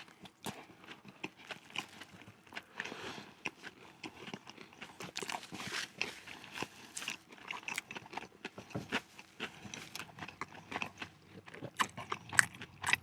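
Biting into and chewing crispy fried-chicken burgers close to the microphone, with many irregular small crunches and crackles.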